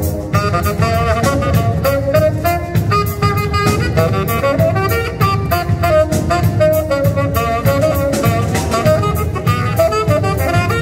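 Live jazz band playing: a saxophone carries a moving melody line over a drum kit keeping a steady beat.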